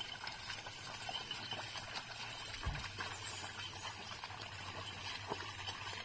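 Faint sloshing and splashing of a pair of bullocks' hooves and a plough being dragged through a flooded, muddy rice paddy, with a single low thump about halfway through.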